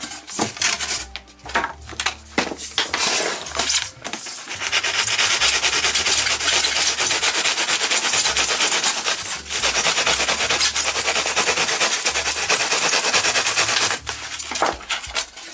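Pruning saw cutting through pink foam insulation board: a few separate scraping strokes, then rapid continuous sawing with a steady rasp from about four seconds in, breaking off near the end.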